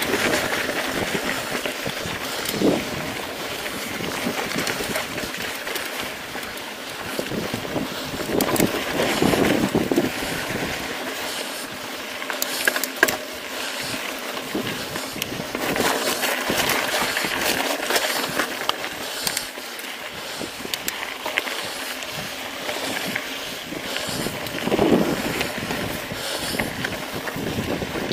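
Mountain bike rolling along a rocky desert dirt trail: wind rushing over the microphone, with the tyres crunching on gravel and small rattles and clicks from the bike.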